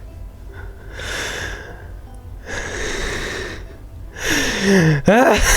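A man breathing hard three times after shouting, loud rough breaths about a second apart, then a wordless falling groan and a loud wavering cry near the end.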